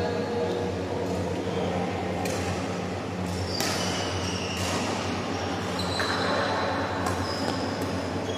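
Badminton rally: several sharp racket hits on the shuttlecock and short high squeaks of court shoes on the floor, over a steady low hum.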